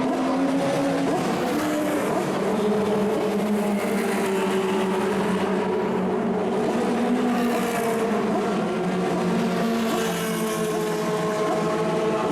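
Engines of 1960s cigar-shaped Formula 2 and Formula 3 racing cars running, more than one at a time at different pitches, their notes rising and falling slowly as they rev.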